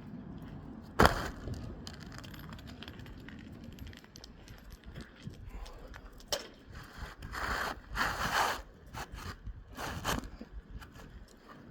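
Asphalt roof shingles and hand tools being worked: one sharp knock about a second in, then scattered clicks and several stretches of scraping and rustling.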